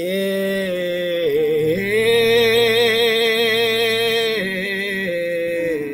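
A man singing long, wordless held notes with vibrato. The longest note runs from a bit under two seconds in to past four seconds, and the pitch then steps to a few shorter notes.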